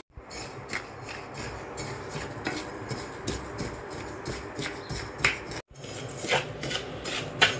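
Rice grains being stirred in hot sand in a metal pan: a scatter of small, irregular ticks and clicks. The sound cuts out for a moment a little under six seconds in.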